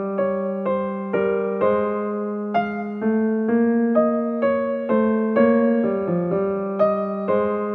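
Background piano music: a steady melody with a new note or chord struck about twice a second, each ringing and fading.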